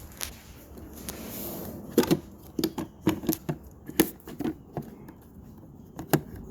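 Hard plastic fuse box cover being unclipped and handled: a series of irregular sharp clicks and taps, most of them between two and five seconds in.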